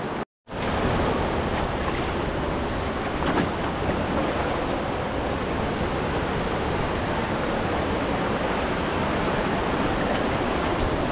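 Steady rush of fast-flowing water, starting abruptly after a brief gap just after the start and holding an even level throughout.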